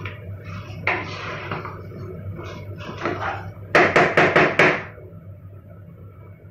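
Wooden spatula stirring and scraping beef masala in an aluminium pressure cooker, then five quick knocks of the spatula against the cooker's rim about four seconds in.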